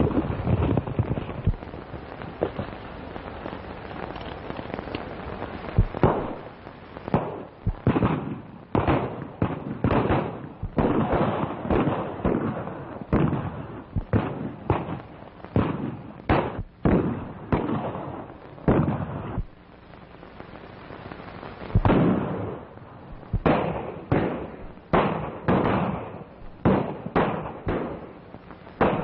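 Gunfight: a long string of irregular gunshots, some fired close together and others a second or so apart, beginning about six seconds in with a short lull about two-thirds of the way through. The shots sound thin and crackly, cut off in the treble as on an early-1930s film soundtrack.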